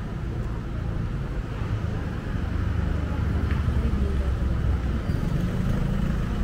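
Low, steady rumble of street traffic, a vehicle engine running close by that swells a little about three seconds in.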